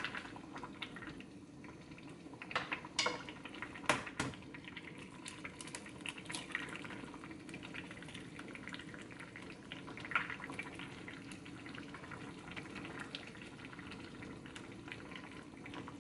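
Soft tofu stew boiling in a pot on a gas stove, with a steady bubbling and many small pops. A few sharper clicks and knocks come around three, four and ten seconds in.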